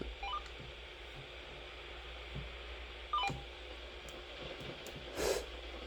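Two short electronic beep sequences, each a quick run of stepped tones rising in pitch, about three seconds apart, over a low steady hum. A short soft hiss comes near the end.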